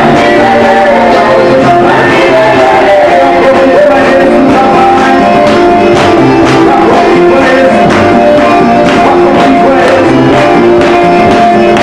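Loud worship music: singing over a band, with a bass line and regular drum hits.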